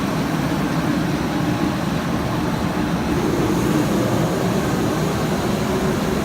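Burners of a two-burner commercial gas wok range, about 200,000 BTU, running at full flame: a loud, steady, low rushing roar.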